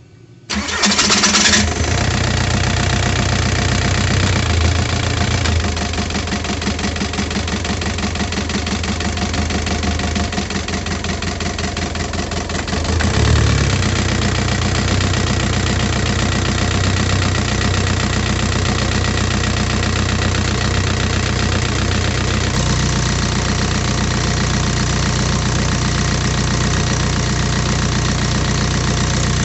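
A Skoda 1.9 diesel engine catches about a second in and then runs with a steady diesel clatter. The engine note shifts about halfway through and again near the end. This is the engine starting on a freshly rebuilt, re-timed injection pump.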